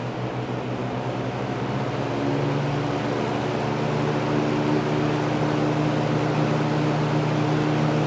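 Transistorized variable-speed Rotobroil box fan running with a steady rush of air and a low hum; about two to three seconds in the hum steps up in pitch and the fan grows a little louder as its speed dial is turned up.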